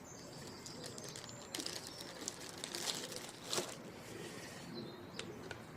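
Quiet background with faint bird calls and a few light clicks and rustles of handling.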